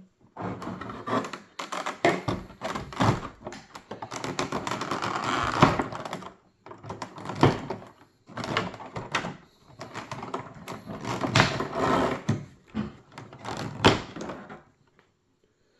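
Handling of a boxed puzzle box and its cardboard packaging: irregular rustling and scraping with scattered knocks and thuds as things are moved and set down.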